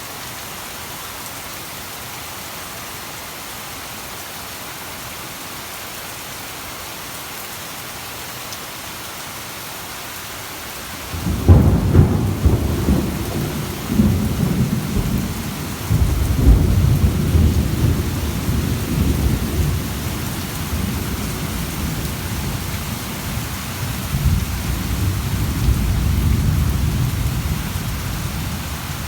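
Steady rain falling, then about eleven seconds in a thunderclap breaks suddenly and rolls on as a long low rumble, with further peals about two and four seconds later and another swell near the end, all over the continuing rain.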